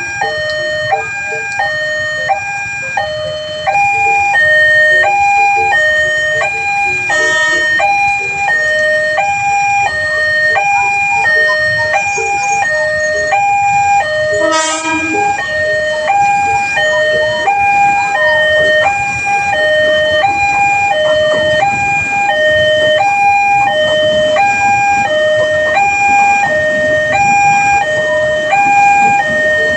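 Railway level-crossing warning alarm sounding a continuous two-tone electronic siren, switching between a high and a low tone about every 0.6 s, the signal that a train is approaching. A brief sharp sound cuts through it about halfway through.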